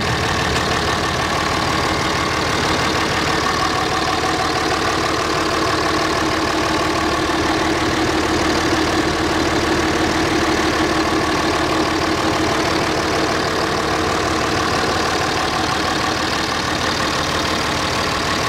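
Dodge Ram Cummins inline-six turbo diesel idling steadily.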